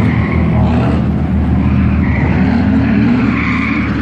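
A drift car's engine running hard, its revs rising about halfway through, with tyre squeal from skidding.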